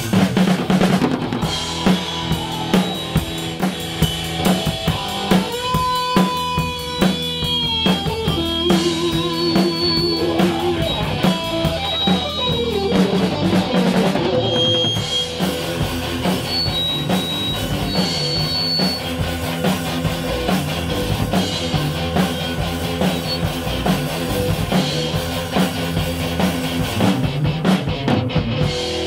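Rock band playing: a drum kit hit hard throughout, with electric guitar and bass guitar. From about six seconds in, a guitar holds long notes that bend and waver.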